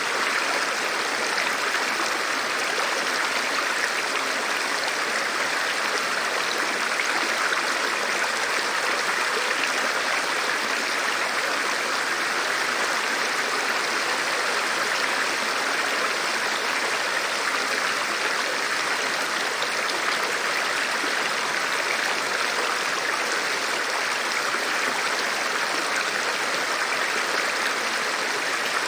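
A river rushing steadily: an even wash of flowing water, more hiss than rumble, with nothing standing out from it.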